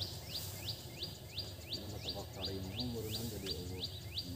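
A high, sharp chirping call repeated steadily at about four chirps a second, with a faint voice in the background around the middle.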